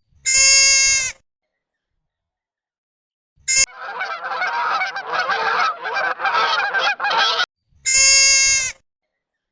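Geese calling: a single loud honk, then a flock honking and cackling over one another for about four seconds before cutting off suddenly, then another single loud honk.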